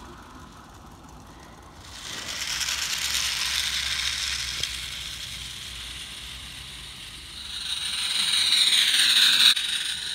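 Small 16mm-scale garden-railway trains running on 32mm-gauge track, their wheels rattling over the rails. The rattle starts suddenly about two seconds in and swells near the end into a loud hiss as a train passes close, then cuts off abruptly.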